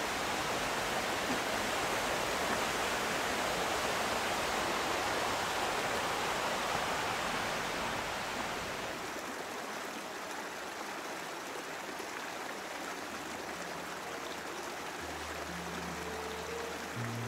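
Steady rush of flowing stream water. About halfway through it drops to a softer flow, and low, sustained background music notes come in near the end.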